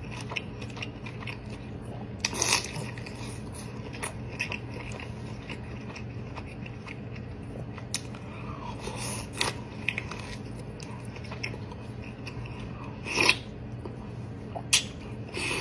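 Close-miked eating of a seafood boil: biting and chewing with scattered crunches and cracks, the loudest about two and a half seconds in and twice near the end, over a steady low hum.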